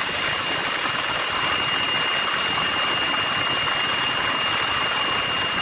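Helicopter hovering, heard from the open cabin door: a steady, loud rush of engine and rotor noise with a high, steady turbine whine.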